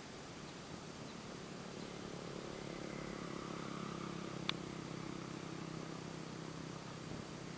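Faint, steady low engine hum that swells and eases in the middle, with one sharp click about four and a half seconds in.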